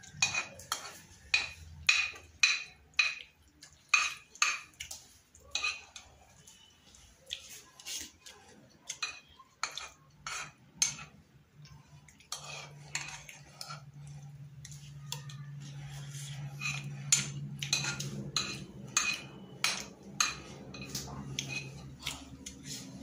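Metal spoon clinking and scraping against a metal cooking pot as food is scooped out, in irregular sharp clinks, often about two a second. A low steady hum comes in about halfway through.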